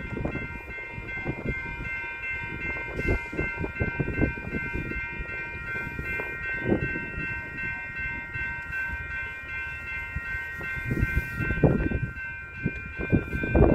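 Railroad grade-crossing warning bell ringing steadily as the crossing activates for an approaching train, over irregular low rumbles.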